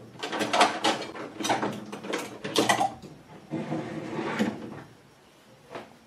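Irregular short scrapes and knocks of a drinking glass being handled and tipped against a plastic mixing bowl, draining the last of the hemp oil, for about four and a half seconds.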